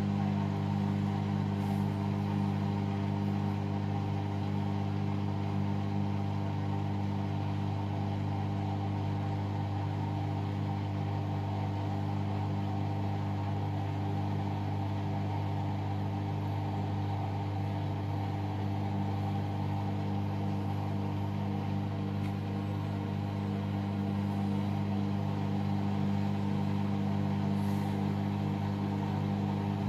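Hoover All In One washing machine running with a steady, unchanging motor hum.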